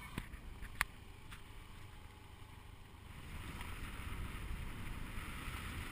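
Moto taxi motorcycle running along a dirt road: a low steady rumble of engine and wind that grows a little louder after about three seconds, with two sharp clicks within the first second.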